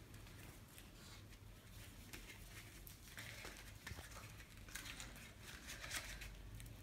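Faint rustling and crinkling of card and paper as a handmade dumbbell-shaped greeting card is untied and opened, with a few short louder patches of rustle about three, five and six seconds in.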